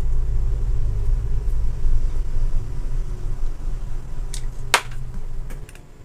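Low, steady rumble that cuts off suddenly shortly before the end, with a sharp click about three-quarters of the way through.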